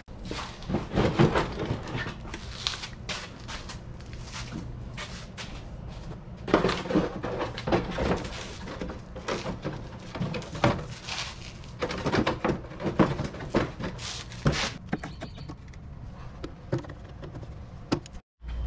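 Rapid, irregular knocks, clicks and rattles of hands and tools working on a golf cart's plastic body panels, coming in busy clusters that thin out near the end.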